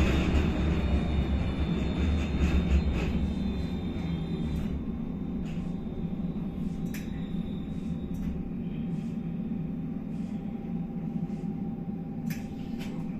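Inside a tram: the low rumble of running on the rails dies away over the first few seconds as it slows to a stop. Then the standing tram's steady low electrical hum with a faint whine, and a few light clicks.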